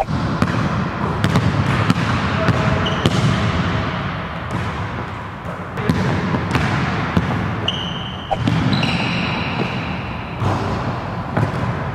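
A basketball being dribbled and bouncing on a hardwood gym floor, repeated sharp thuds over a busy background, with a few short high squeaks.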